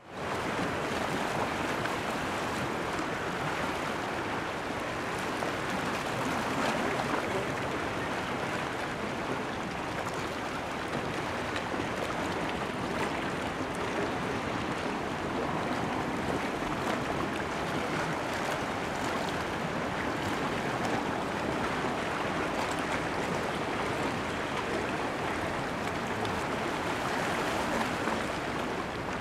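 Small sea waves washing steadily against a rocky shore, an even hiss of water with no pauses.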